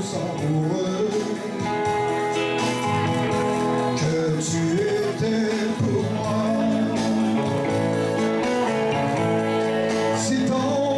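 A man singing a song with electric guitar accompaniment, live into a microphone.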